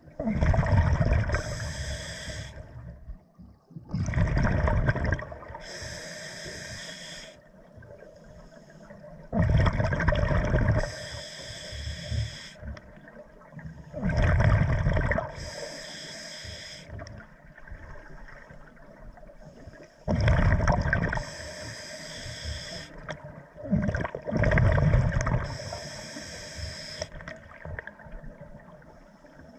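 A scuba diver breathing underwater through a regulator: a bubbly rumble of exhaled air, then the hiss of the demand valve on each inhale, six breaths at about one every four to five seconds.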